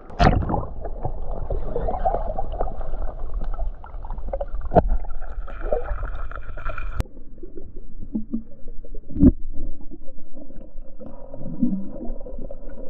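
Muffled underwater sound of a stream heard through a submerged camera: a steady churning, gurgling water noise with a few sharp knocks spread through it.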